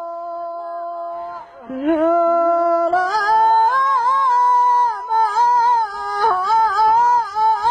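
A farmer singing a traditional Arabic song solo, drawing out the words in long melismatic notes: one held note, a brief break about one and a half seconds in, then a higher line with wavering ornaments.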